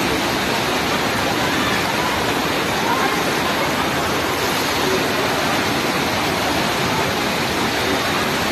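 Fast-flowing floodwater rushing in a torrent down a flooded street, a steady loud rush of water.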